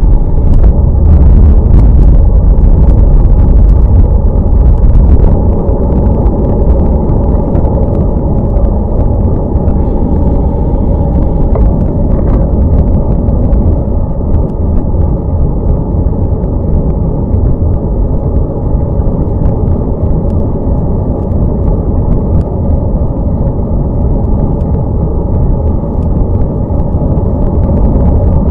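Wind buffeting the microphone of a bike-mounted camera on a moving road bike, mixed with the rolling noise of tyres on wet tarmac: a loud, steady low rumble that eases a little about five seconds in, with a few faint knocks from the road.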